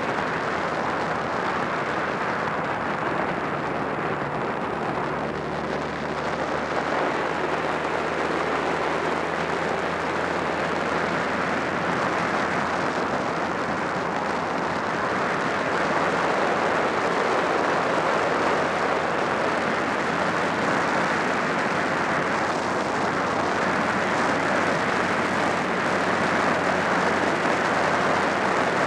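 Steady wind noise on the microphone of a moving Honda Rebel 250 motorcycle, with the bike's air-cooled parallel-twin engine running evenly underneath at cruising speed. It grows a little louder about halfway through.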